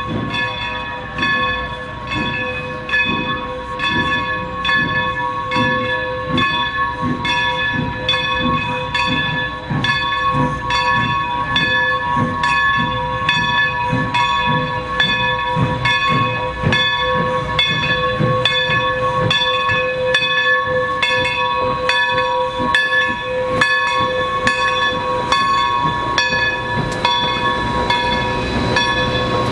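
Steam locomotive's bell ringing steadily, struck a little more than once a second, as the Baldwin 2-8-0 draws its train slowly into the station, over the low rumble of the engine and cars.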